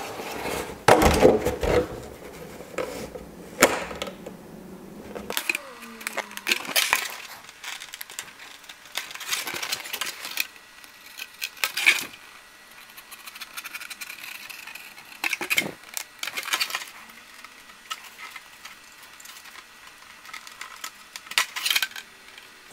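Hobby knife scoring a thin clear plastic RC car body, with scattered scrapes, clicks and crackles as the blade drags and the flexible shell is handled.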